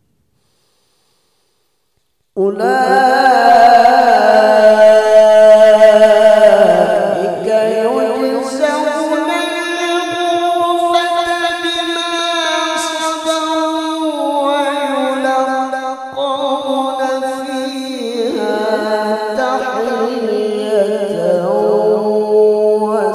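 Male qari reciting the Qur'an in the melodic tilawah style into a microphone. About two seconds in he begins a long, ornamented phrase sung without a break, the pitch gliding up and down.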